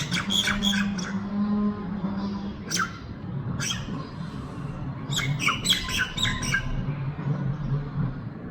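Common myna calling in clusters of short, sharp, harsh notes: one burst at the start, a few single notes around three seconds in, and a denser run between about five and six and a half seconds. A steady low hum runs underneath.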